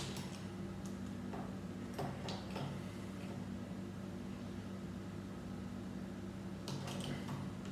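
A few faint clicks and taps of small plastic Lego pieces being handled and pressed together, scattered near the start, a couple of seconds in and near the end, over a steady low hum.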